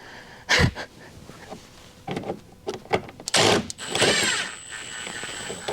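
Metal hand tools and bits clattering and knocking as they are handled and sorted, a run of sharp knocks with a longer noisy rattle a little past halfway.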